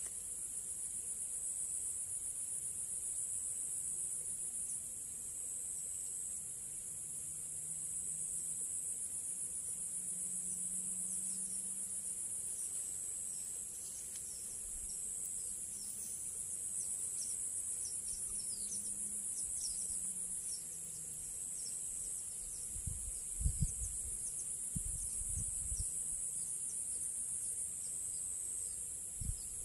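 Steady high-pitched insect chorus, pulsing evenly, with short high chirps in the middle and a few low thumps near the end.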